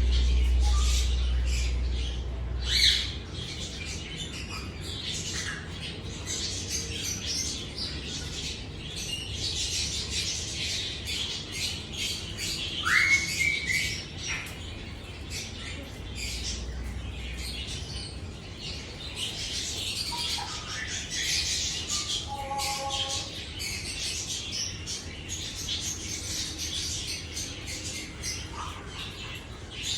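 African grey parrot making a long string of short, high squawks and chirps, with a clear rising whistle about halfway through.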